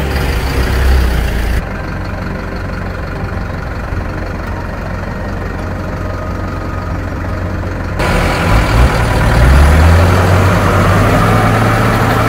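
Heavy diesel vehicle engine running steadily, then rising in pitch as it speeds up about nine seconds in. The background changes abruptly twice along the way.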